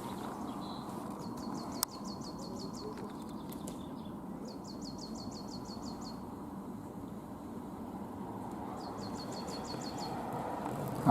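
A songbird singing three short runs of quick, evenly repeated high notes, over steady low outdoor background noise. A single sharp click sounds about two seconds in.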